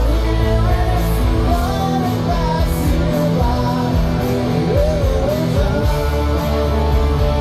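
A man singing a rock song while playing an electric guitar, his sung melody wavering over held chords.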